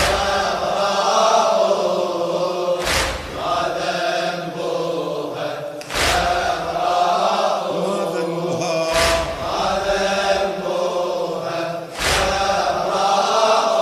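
Male voices chanting a Shia latmiyya mourning refrain in Arabic, drawn-out and held. A heavy beat lands about every three seconds.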